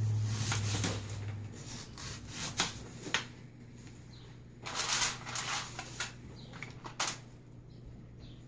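Knife cutting a red onion on a plastic cutting board, then the onion slices being pulled apart by hand over aluminium foil: scattered sharp clicks and short crinkly rustles. A low hum cuts off about a second and a half in.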